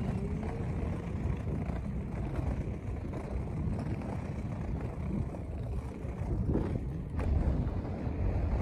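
Wind buffeting the microphone outdoors, a low uneven rumble that rises and falls, with a faint click about seven seconds in.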